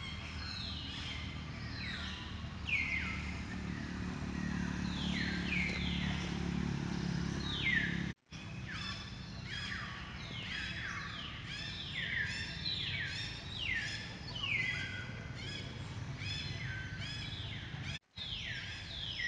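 A chorus of birds calling: many overlapping, repeated whistles that slide downward in pitch, several a second. The sound cuts out completely for a moment twice, and a low rumble sits under the first half.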